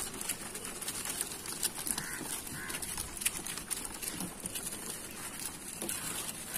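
Outdoor background noise with scattered clicks and a few faint animal calls, one pair about two seconds in and another around four seconds.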